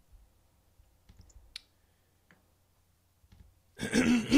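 A few faint clicks, then near the end a man clears his throat loudly.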